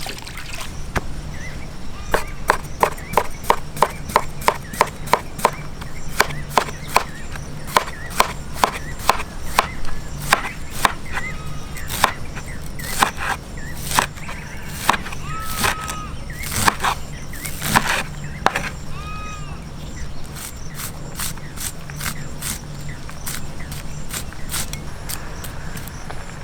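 A knife chopping banana flower florets on a wooden cutting board in quick, regular strokes of about three a second, thinning out and getting softer over the last several seconds. A few short chirps come in between the strokes, and a low hum runs underneath.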